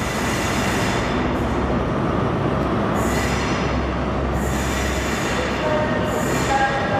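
Class 43 HST diesel power car running as the train pulls away at low speed, a steady rumble with hissing surges. A thin high squeal joins near the end.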